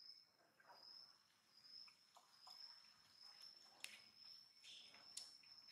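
Faint, steady high-pitched insect trill, like a cricket's, with a few soft scattered clicks.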